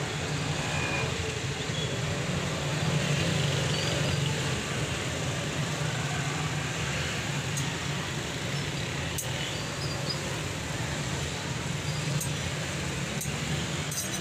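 Steady low drone of background noise, with a few sharp taps of a small tool on a plastic battery lid scattered through the second half.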